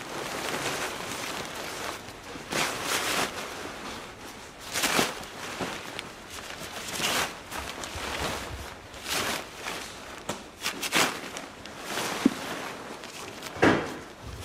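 Tent fabric rustling in repeated swells as it is handled, with a few sharp knocks of the tent poles, the loudest near the end.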